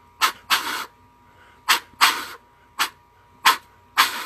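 Canada goose call blown in short, sharp bursts: about seven, mostly in pairs of a quick tick followed by a longer breathy note, each cut off at the back of the throat to demonstrate the jump moan note.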